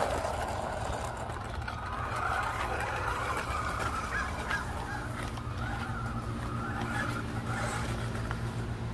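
Small RC monster truck's electric motor and drivetrain whining, the pitch wavering up and down with the throttle as it drives over grass.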